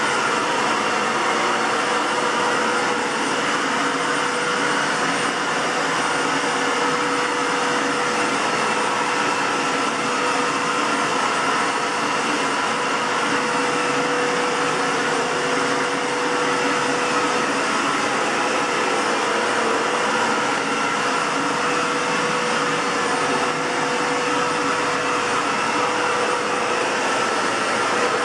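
Aerus Lux 5500 (C152C) Electrolux canister vacuum cleaner running steadily: a constant rush of air with a steady whine. Its motor has a bad bearing.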